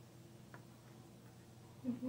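Quiet room with a faint steady hum and a single faint click about half a second in; a brief voice sound just before the end.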